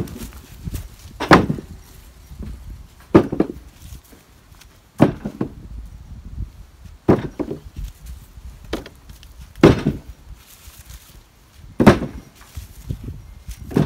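Wood being chopped by hand: a sharp blow on wood about every two seconds.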